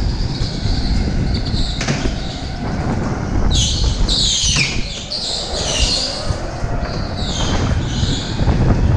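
Electric go-kart on a concrete indoor track, heard from on board: steady low rumble from the chassis and wind on the microphone. From about three and a half seconds in until near the end, the tyres squeal in several wavering high-pitched bursts while cornering.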